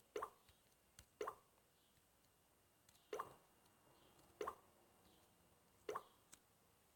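Faint, short soft taps, about seven at uneven spacing, each a quick little plop: fingertips tapping a phone touchscreen while options are picked in an app.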